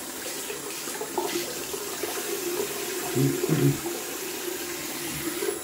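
Water running from a bathroom sink tap into the basin, steady, with louder splashing about three seconds in.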